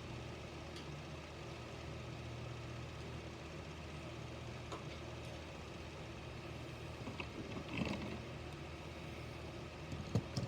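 Steady low background hum, with a few faint clicks and a light rustle near the end as small die-cast toy cars are handled.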